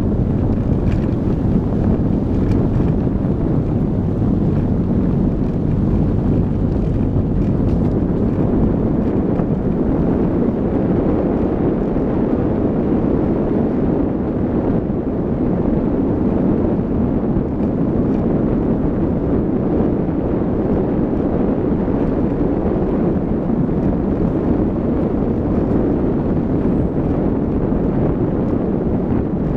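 Car driving along a dirt and gravel road, recorded by a camera mounted on it: a steady mix of engine, tyres on loose gravel and wind buffeting the microphone.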